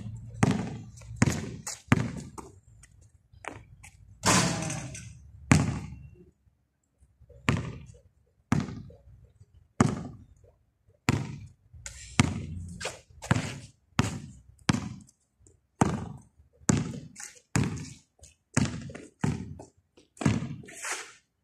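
Basketball dribbled on a concrete court: a string of sharp separate bounces, about one or two a second with short pauses. About four seconds in there is a longer, noisier sound among the bounces.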